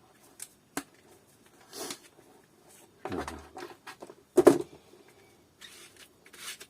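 Vacuum cleaner parts being handled and put down: a few light clicks, a knock just after three seconds and a louder knock about four and a half seconds in, then soft rustling near the end.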